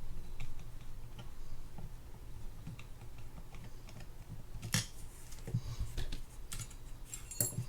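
Small hard clicks and taps of metal reel parts and hand tools being handled on a workbench during a spinning-reel teardown, scattered and irregular, with a louder click a little after halfway and a quick cluster of ticks near the end.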